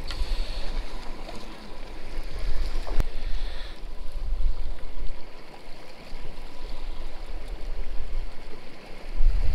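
Sea water sloshing and splashing against the side of a boat, with a low rumble underneath. There is one sharp click about three seconds in.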